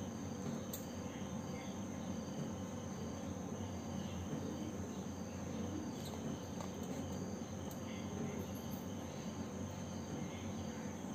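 Steady background noise: a low hum with a constant high, thin tone above it and a few faint ticks.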